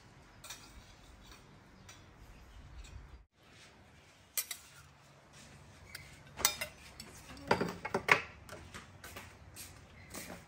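A metal spoon clinking and scraping against a stainless steel bowl and cooking pot as sauce is spooned over mushrooms: a few sharp clinks in the second half, loudest about eight seconds in.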